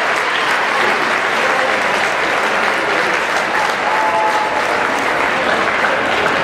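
Large crowd applauding steadily, a dense even clapping.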